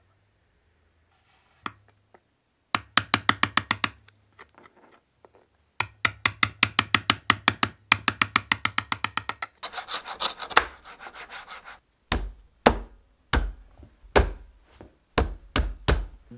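Chiselling a groove into a wooden board: fast runs of light, evenly spaced taps and a stretch of paring scrapes, then separate heavy mallet blows on the chisel, about two a second, over the last four seconds.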